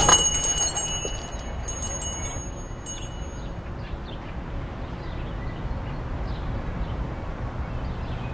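Small metal chime bells struck once as a shop door opens, ringing brightly and fading over about three seconds, followed by a steady low background hum.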